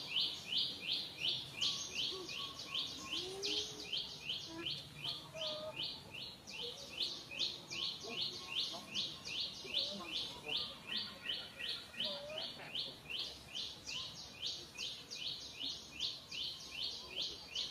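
A high chirping call repeated steadily about three times a second, each chirp short and dropping slightly in pitch, with a few faint lower calls now and then beneath it.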